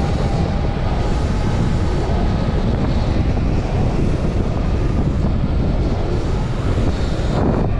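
Wind buffeting the microphone while riding a Sur Ron electric dirt bike over a dirt trail, with a faint steady whine from the electric motor under the rumble.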